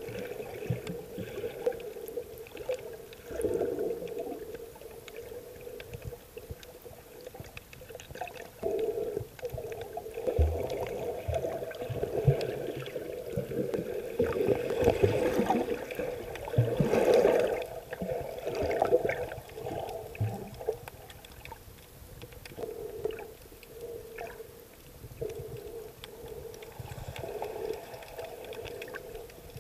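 Muffled underwater sound picked up by a submerged camera: water moving and surging in irregular swells over a steady low hum.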